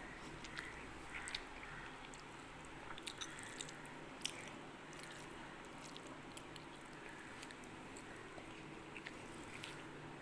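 Faint eating sounds: scattered small clicks and soft chewing over a low steady hum.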